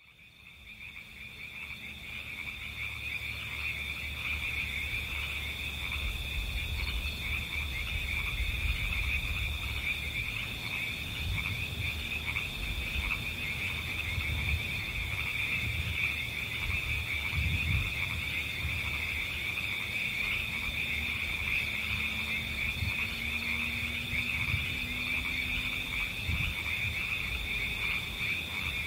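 A steady chorus of calling frogs: a dense, shimmering high-pitched trill in two pitches that fades in over the first few seconds and then holds, with a low rumble underneath.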